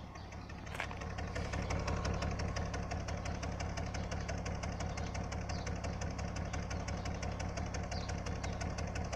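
BMW E46 325i's 2.5-litre straight-six idling with an uneven, pulsing beat: a misfire, put down to a failing ignition coil. The engine grows louder over the first second or so, with a sharp click a little under a second in.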